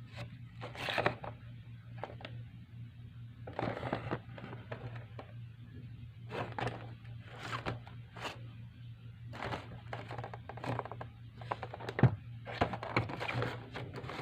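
Handling sounds of a figure's packaging being unboxed: irregular rustling, scraping and light knocks of cardboard and plastic, over a steady low hum.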